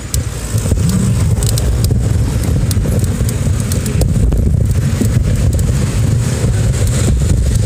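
Riding noise picked up by a phone camera on a moving bicycle: a loud, steady low rumble of wind on the microphone mixed with passing car traffic, with a few sharp clicks and rattles from bumps in the road.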